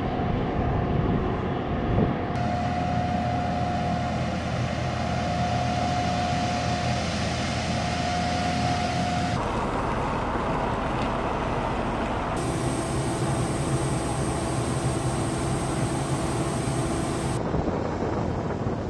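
Steady whine and rumble of jet engines running on an airfield flight line, the mix of tones shifting abruptly three times, with a high whistle added in the later part.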